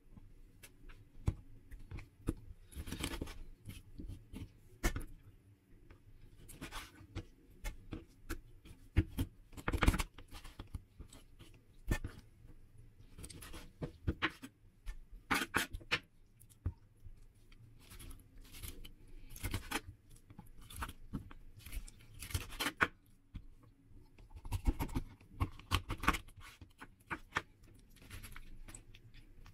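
Chef's knife cutting up a raw whole chicken on a wooden cutting board. Irregular knocks of the blade on the board mix with short scraping cuts through flesh and joints, loudest about ten seconds in and again around fifteen seconds.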